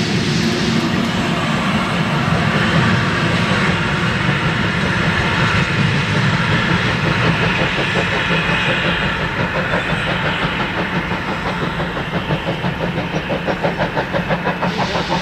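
A steam-hauled passenger train pulls away over station tracks, with a steady rumble of the locomotive and the rolling carriages. In the later part a quick regular beat sets in, about four a second.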